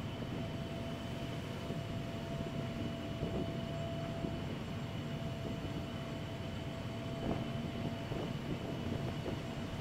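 Steady low drone of a ferry's engines heard on the vehicle deck, with a constant hum running through it and a few light knocks.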